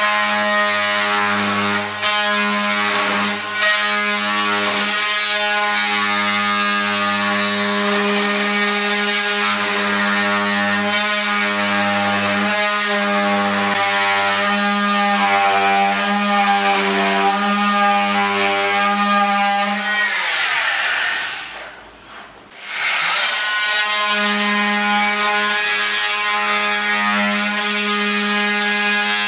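Oscillating multi-tool cutting into the base of an oak partition-frame post, undercutting it so a floorboard can slide beneath. It gives a steady high buzz with the blade rasping in the wood. About 20 seconds in it is switched off and winds down, then starts cutting again a couple of seconds later.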